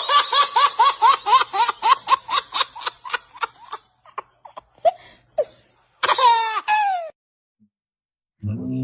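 High-pitched laughter in a fast run of about five bursts a second, fading out after about four seconds. A single drawn-out vocal cry falling in pitch follows about six seconds in.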